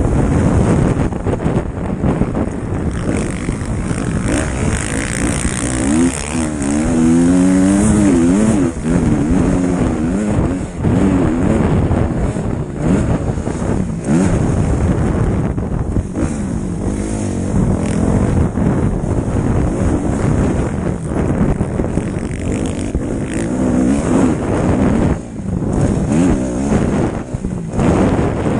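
Motocross bike engine revving hard and falling back again and again as the rider works the throttle and gears, heard close up from an onboard camera, with a few short throttle-offs near the end.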